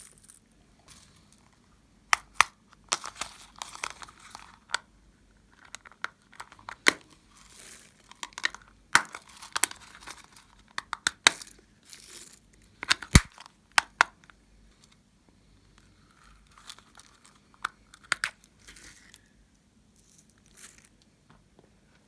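Homemade slime being squished and pulled by hand: irregular sticky crackles and sharp clicking pops, the loudest pop about thirteen seconds in, with quieter handling near the end.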